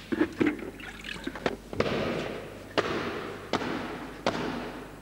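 Water sloshing as a hand goes into a glass fish bowl, then several sharp thumps about one a second from a man stamping on the floor.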